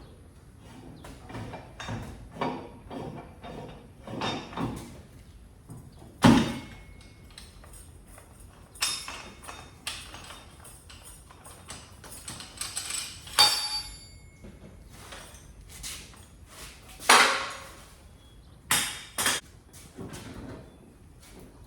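Irregular metallic clanks, knocks and scrapes from handling the boat stands and trailer under an aluminium john boat, with a few ringing metal hits around the middle and sharp knocks about six seconds in and near the end.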